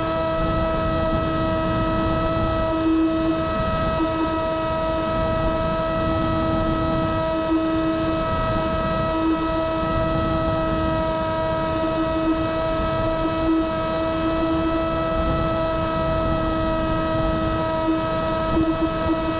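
Electric FPV wing's motor and propeller whining at a steady, unchanging pitch, with wind rushing over the onboard microphone; the whine swells briefly now and then.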